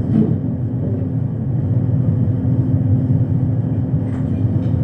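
Steady low rumble with a faint, even hum running through it.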